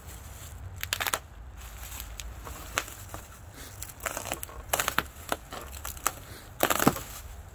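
Plastic bubble wrap crinkling and crackling in irregular bursts as it is pulled apart and slit open with a small blade. The loudest burst comes near the end.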